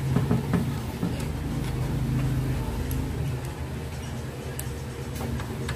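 Screwdriver clicking as screws are driven into a welding machine's fan mount, with a run of quick ticks in the first second and a few faint ones later. Under it runs a steady low engine-like hum, the loudest sound.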